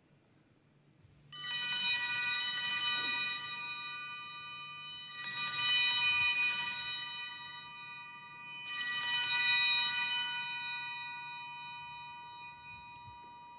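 Altar bells shaken three times during the eucharistic blessing with the monstrance. Each peal of many high tones starts suddenly and dies away slowly, and one tone is still ringing at the end.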